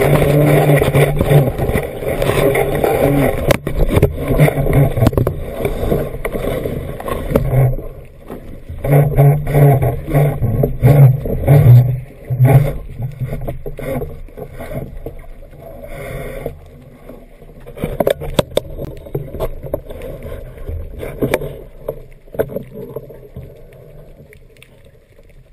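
Underwater noise picked up by a camera in its housing as the diver is moved through kelp: water rushing and buffeting, with many clicks and knocks and a low drone that comes and goes. It is loudest in the first eight seconds and again from about nine to thirteen seconds, then quieter toward the end.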